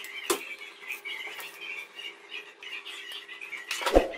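Rice tipped from a metal bowl into boiling water in an aluminium karahi, with a sharp clink just after the start and a metal spoon clattering against the pot near the end. A faint high chirping runs underneath throughout.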